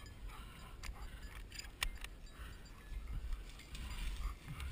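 Rustling and crackling of tall dry grass stalks with footsteps through them, scattered light clicks and a low wind rumble on the microphone.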